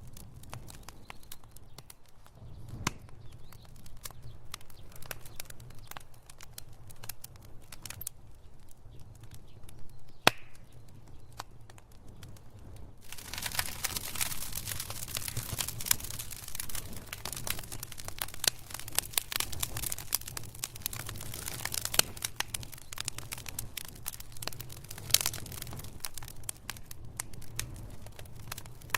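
Wood fire crackling in a fireplace: a constant run of sharp pops and snaps over a low steady rumble, turning denser and hissier about halfway through.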